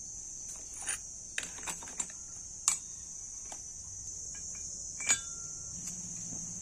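Steady high-pitched insect drone, typical of crickets, with a scattered series of light sharp taps and clicks, the loudest about a third of the way in and again near three-quarters.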